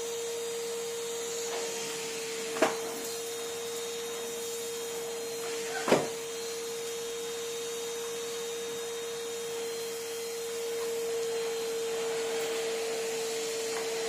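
Numatic Henry cylinder vacuum cleaner running with a steady tone and airy rush of suction, its level rising slightly past the halfway point. Two sharp knocks stand out, about 2.5 s and 6 s in.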